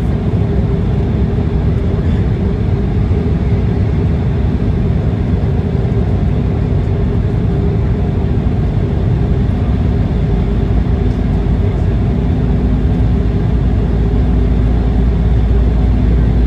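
Cabin noise inside an Embraer E190 airliner in descent: a steady rumble of airflow and its GE CF34 turbofan engines, with a couple of steady hums, the low rumble growing a little louder in the second half.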